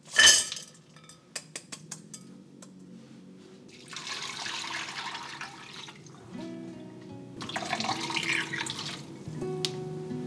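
Dried soup herbs tipped from a metal mesh strainer into a clay pot land with a short clatter, followed by several light taps of the strainer. Then hot water is poured from a glass measuring jug onto the herbs in the pot in two pours, about four and about eight seconds in, to soak them.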